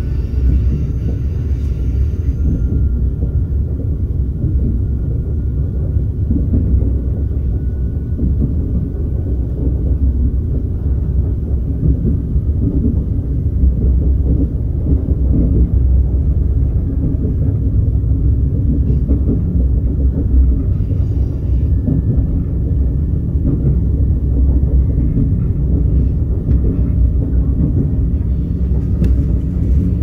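Steady low rumble of a KTX-Sancheon train running, heard from inside the passenger cabin.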